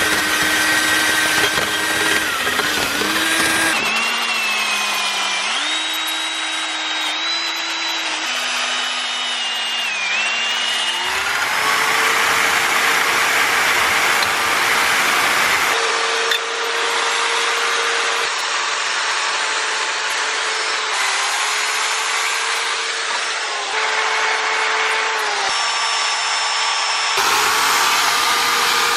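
Electric drill spinning a wire brush and abrasive attachments against the rusty cast iron of an old charcoal iron: a steady motor whine with scraping and rasping of the brush on the metal. The motor's pitch drops and rises as it is pressed into the work, and the sound changes abruptly several times.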